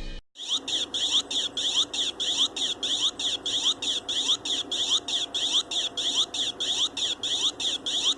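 Electronic sound effect from a DF Robot micro:Maqueen robot's small onboard buzzer: a rapid, even chain of short high-pitched chirps, about three and a half a second, each with a quick upward sweep. It starts just after a moment's silence.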